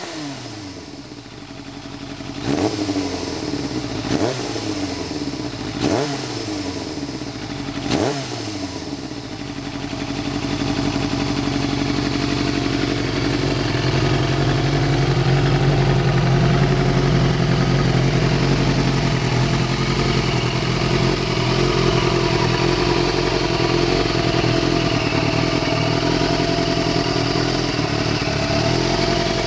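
Kawasaki ZXR750 H1's inline-four engine, freshly rebuilt with new pistons and a ported head, blipped sharply about five times with each rev falling back quickly. From about ten seconds in it rises and holds a steady running note.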